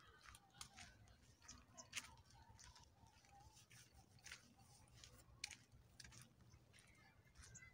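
Near silence with faint, irregular crunching clicks, about one or two a second: footsteps on a dry dirt path.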